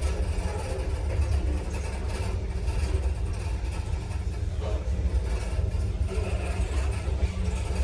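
KMZ passenger elevator running in its shaft: a steady low rumble and hum.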